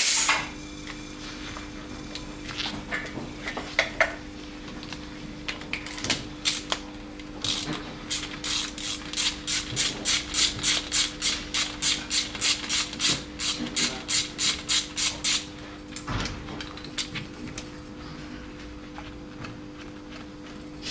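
Hand-tool work on a diesel engine's cylinder head while the compression gauge is moved from one cylinder to the next. A few scattered clicks and knocks give way, about seven seconds in, to a regular run of sharp clicks about two a second that lasts some eight seconds, like a ratchet being worked. A steady electrical hum runs underneath.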